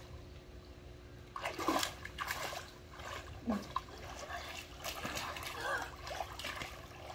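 Pool water splashing and sloshing as children swim, duck under and resurface, in irregular bursts beginning about a second and a half in.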